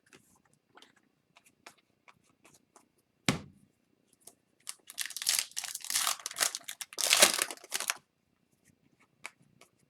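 Foil wrapper of a trading card pack being torn open and crinkled. Light clicks come first, with a single knock about three seconds in.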